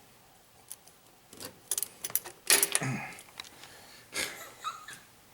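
Scattered light metallic clicks and clatters of tools and small-block engine parts being handled, a few short bursts with quiet between.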